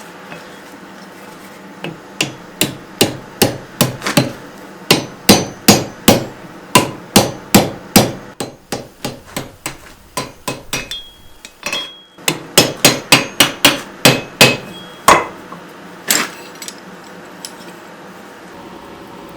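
Hand hammer blows on steel over an anvil: a steady run of sharp strikes, about two or three a second, lighter for a few seconds midway, then heavy again, ending with two last blows.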